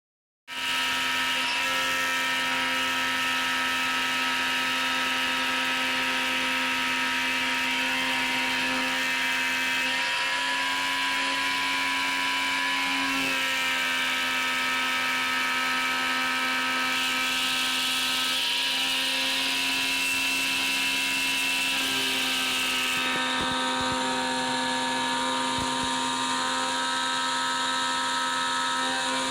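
A CNC router spindle running with a 1/8-inch single-flute end mill cutting 6061 aluminium plate. It is a steady, high whine of several tones over a cutting hiss, starting abruptly and continuing without a break. The hiss on top thins a little after three-quarters of the way through.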